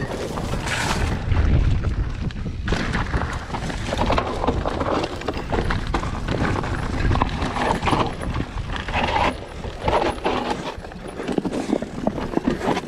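Mountain bike ridden fast downhill over rough, rocky ground: tyres on loose stones and the bike rattling over a steady stream of small knocks, with wind buffeting the microphone.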